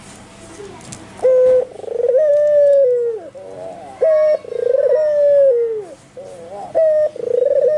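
White albino ringneck dove (puter) cooing loud and fast, repeating its phrase three times. Each phrase is a short clipped note, a rolling purr, then a long drawn coo that falls away at the end.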